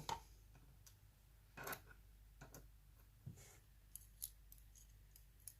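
Faint, scattered light clicks and taps of small metal lock parts being handled as the pins are taken out of a dismantled mortise cylinder's plug. About six small clicks, spread out irregularly.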